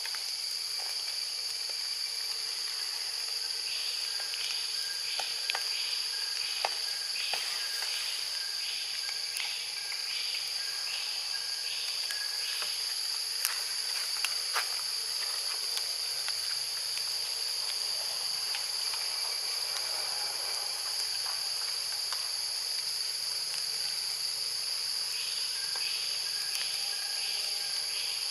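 Steady, high-pitched drone of forest insects, with a second insect-like pulsing chirp about twice a second from about four seconds in until halfway, and again near the end. A few faint clicks.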